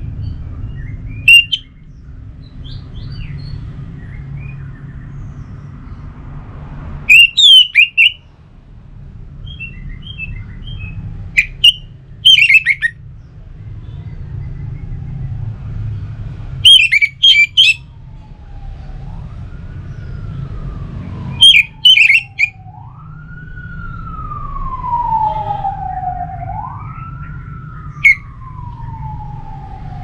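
Orange-headed thrush singing short, loud, high phrases every few seconds over a low steady rumble. From about two-thirds of the way through, a siren wails slowly up and down beneath the song.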